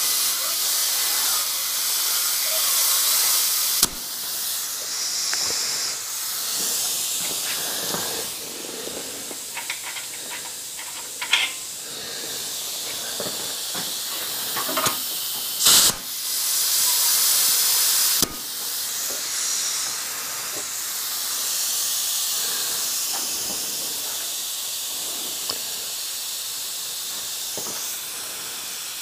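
Compressed air hissing from a shop air hose used to work the forklift's hydraulic lift cylinder. The hiss swells and eases as the air is let in and shut off, cutting off sharply a few times, with several short clicks from the fittings.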